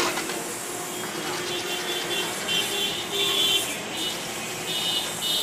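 Street traffic noise with a skid-steer loader's engine running, and a few short high-pitched tones about halfway through and again near the end.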